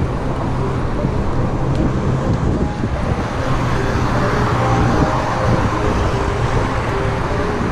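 Riding noise from a moving bicycle: steady wind rush on the microphone mixed with road traffic going by on the adjacent road.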